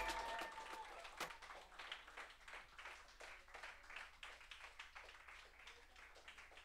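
A small audience clapping after a song, the applause thinning out and dying away.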